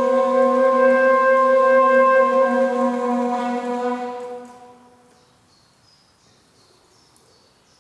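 One long, steady wind-instrument note, low and rich in overtones, that fades out about four to five seconds in. After that it is nearly quiet, with a few faint, short, high chirps.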